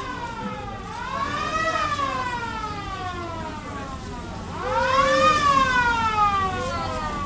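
Police-car siren wailing from an American-style black-and-white police car: repeated sweeps that rise quickly and fall away slowly, growing louder about two-thirds of the way through.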